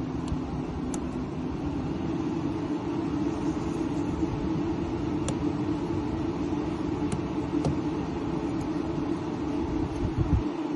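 Steady low rumble, with a few faint, scattered metallic ticks from a Lishi pick working the wafers of a 1987 Nissan Stanza's door lock.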